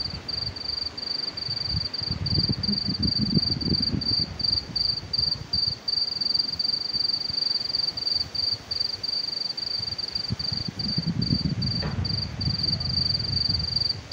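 Crickets trilling steadily on one high pitch, broken now and then by short gaps. A low rumble swells up twice, about two seconds in and again near the end.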